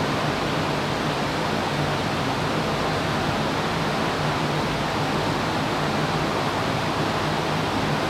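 Loud, steady fan noise from dozens of running GPU cryptocurrency-mining rigs and the box fans cooling them: an even rushing hiss with a low steady hum underneath.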